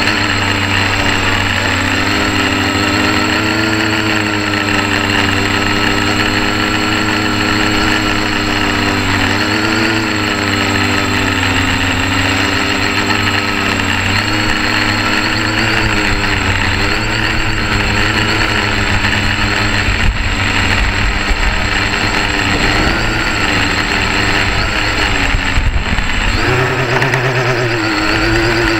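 Quadcopter's electric motors and propellers buzzing, close to the microphone, the pitch rising and falling several times as the throttle changes. A thin steady high tone runs underneath.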